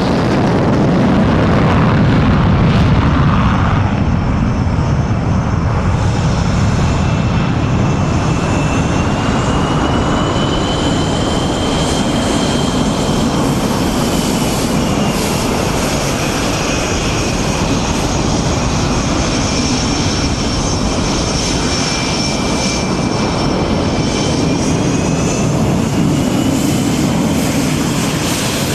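Jet engines of Swiss Air Force F/A-18 Hornets (twin General Electric F404 turbofans) running loudly and steadily. Through the middle a high turbine whine sits above the roar and slowly drifts up and down in pitch.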